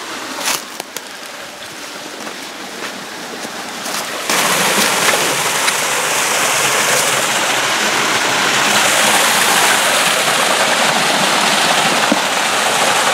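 Rushing creek water, heard as a steady hiss with a few knocks in the first seconds; about four seconds in it jumps suddenly to a much louder, steady rush.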